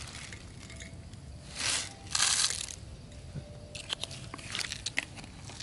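Dry grain poured from a plastic bottle into a hand: two short rushing pours, then a run of light ticks and clicks as grains are scattered and the bottle is handled.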